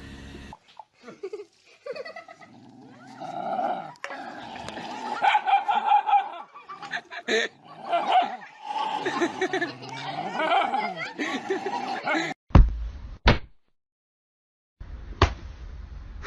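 A dog vocalising amid people laughing, wavering and pitched, for most of the stretch; then a loud low thump about twelve seconds in, and a sharp click a little later.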